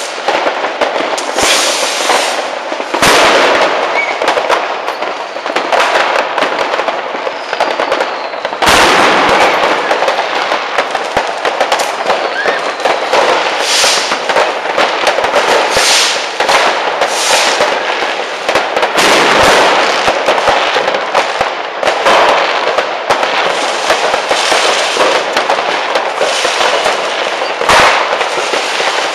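Massed fireworks and firecrackers going off all around: a dense, unbroken crackle of small bangs with heavier booming bursts about three seconds in, about nine seconds in, and again around nineteen and twenty-eight seconds.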